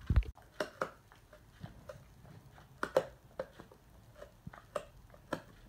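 A Doberman mouthing or chewing, heard as irregular soft clicks and smacks, a few a second. A low thump comes just at the start.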